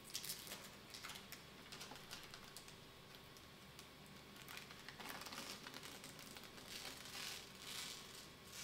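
Protective plastic film being peeled off the plastic panels of a Bambu Lab AMS filament unit: faint, irregular crackling and crinkling, busiest in the second half.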